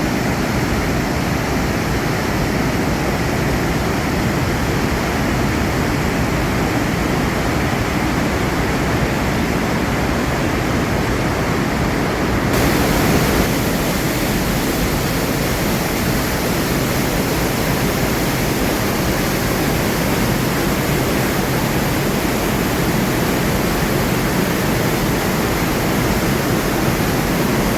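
The Rhine Falls, a large waterfall: a steady, loud roar of falling water. About halfway through, its hiss gets brighter and louder.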